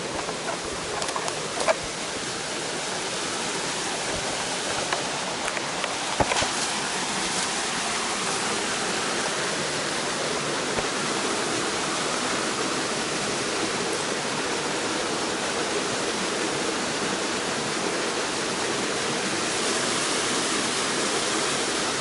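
Steady rush of the Gürleyik waterfall and its stream, growing a little louder. A few sharp clicks and knocks of footsteps on loose stones in the first several seconds.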